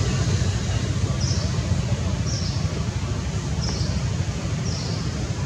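Steady outdoor background noise with a heavy low rumble. A short high chirp repeats about once a second over it.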